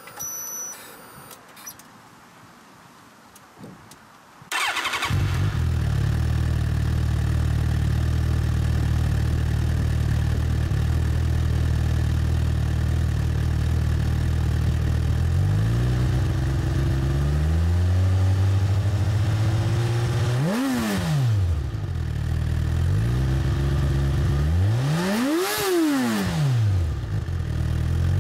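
Suzuki GSX-R1000 inline-four engine breathing through its stock twin mufflers: it fires up about four seconds in and idles steadily. In the second half the throttle is blipped several times, with two quick, higher revs that rise and fall sharply.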